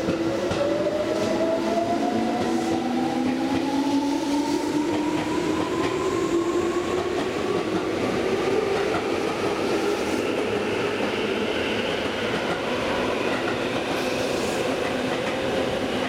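Tobu 9000 series electric commuter train pulling away, its traction motors whining in several tones that rise steadily in pitch as it gathers speed, with a higher whine coming in about halfway through. Wheels click over rail joints in the first few seconds.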